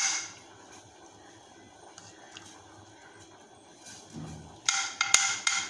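Steel spoon scraping and clicking against a non-stick kadai as ghee is slid off it into the pan. A brief scrape right at the start, a quiet stretch, then a short burst of scraping with one sharp click near the end.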